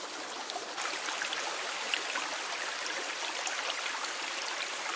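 Small rocky forest stream running over stones: a steady wash of flowing, trickling water.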